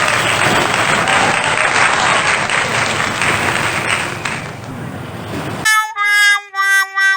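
Steady rushing noise of surf and wind on the beach, cut off abruptly near the end by a short tune of horn-like electronic notes in a quick rhythm.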